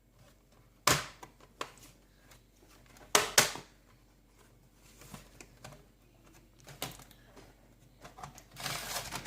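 Plastic snap clips on an HP 15-AC151DX laptop's bottom case popping loose as the case is prised apart by hand. There are a few sharp clicks and snaps, the loudest about three seconds in, and a longer plastic scrape near the end.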